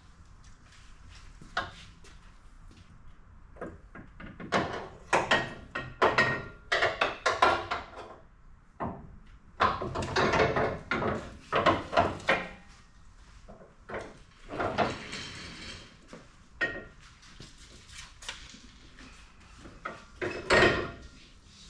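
Metal clanking and knocking as a hollow TrailSport sway bar is worked into place under an SUV's front end, the bar bumping against the suspension. The knocks come in irregular bursts, thickest a few seconds in through the middle, with one louder knock near the end.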